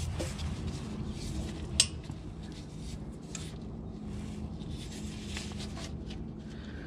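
Faint metal clinks and scraping of a 4 mm Allen key being fitted to and turning the Haldex coupling's pump bolts, with one sharper click a little under two seconds in, over a low steady hum.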